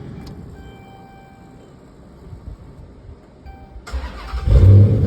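Dodge Charger engine cranked by the starter and catching quickly about four seconds in, with a brief loud flare and then a steady fast idle. The quick start follows the repair of a broken camshaft sensor connector and the replacement of the sensor.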